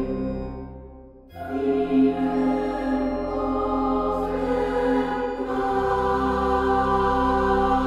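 Background music of sustained held chords; it fades briefly, swells back in about a second in, and moves to a new chord about halfway through.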